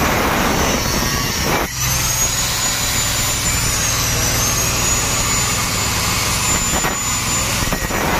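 A car engine idling steadily, with a faint high-pitched whine that dips in pitch and comes back up around the middle.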